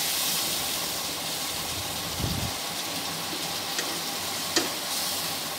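Prawns and spice paste sizzling in hot oil and a little added water in a karahi, a steady hiss, while a wooden spatula stirs through them. The spatula bumps the pan once about two seconds in and taps it sharply twice near the end.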